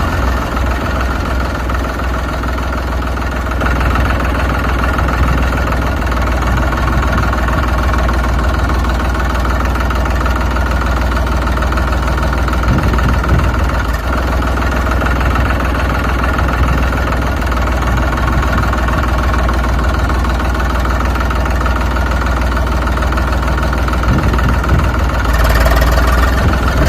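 Tractor engine idling steadily with a low hum, growing a little louder near the end.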